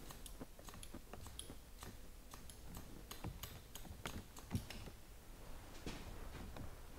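Barber's steel shears snipping hair in quick, irregular crisp clicks, the tips point-cutting into a section of hair held between the fingers. One snip about four and a half seconds in is louder than the rest.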